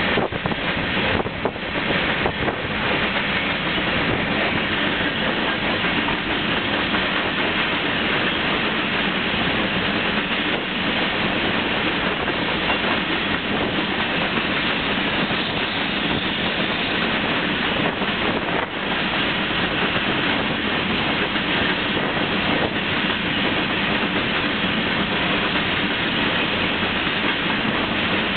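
Covered hopper cars of a freight train rolling past close by: a steady noise of steel wheels on rail, with a few sharper clacks about a second in and again about two-thirds of the way through.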